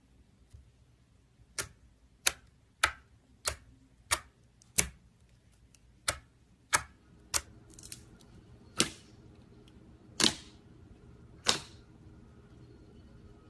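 Clear slime being worked by hand, giving about a dozen sharp pops and clicks at an uneven pace, with a brief squishy hiss partway through.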